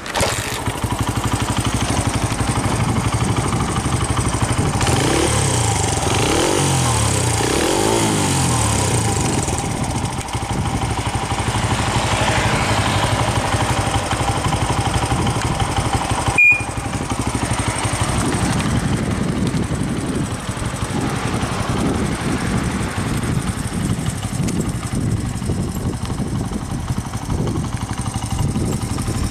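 Honda Ape100's single-cylinder four-stroke engine running through an Over Racing aftermarket exhaust. It catches right at the start and idles. About five to ten seconds in it is blipped a few times, the revs rising and falling, before it settles back to a steady idle. A sharp click with a momentary dropout comes about halfway through.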